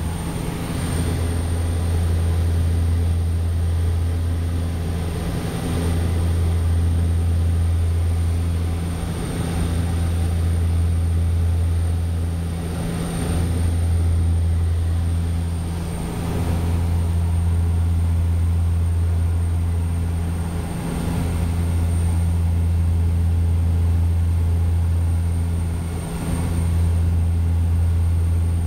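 Floatplane propeller engines heard from inside the cabin in flight: a loud, steady low drone whose loudness dips briefly every few seconds.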